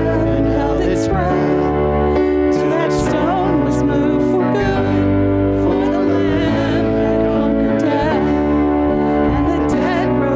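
Hymn music: singing over sustained electric keyboard chords with a low bass line that changes every second or two.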